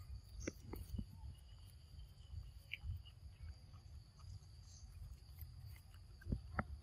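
Insects trilling steadily in a high, even tone over a low rumble, with a few faint short clicks about half a second in and again near the end.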